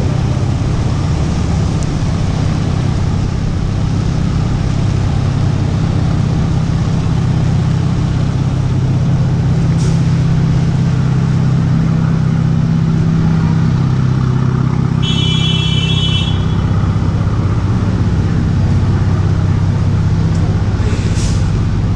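Steady city street traffic on wet roads, with a low engine rumble from nearby vehicles. About two-thirds of the way in comes a brief high-pitched tone lasting about a second.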